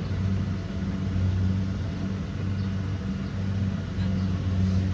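Kubota DC70 Pro combine harvester's diesel engine running steadily with a low, even hum.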